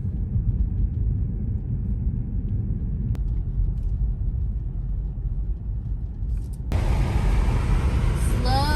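A car being driven on icy roads: a steady low rumble of tyre and road noise. About seven seconds in it suddenly gets louder, with a hiss added.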